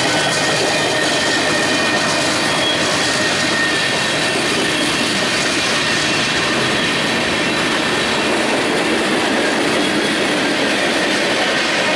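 Freight train's tank cars and covered hoppers rolling past close by on curving track: a steady rumble of wheels on rail with a thin, high wheel squeal running through it.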